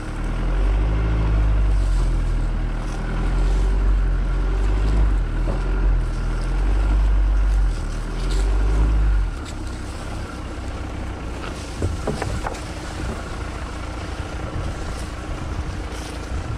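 Fiat Toro's 2.0 turbo-diesel engine working under load as the pickup pulls in four-wheel drive through soft, freshly plowed soil, heard from outside beside the front wheel. About nine seconds in the engine sound drops to a quieter, rougher rumble with a few clicks and knocks.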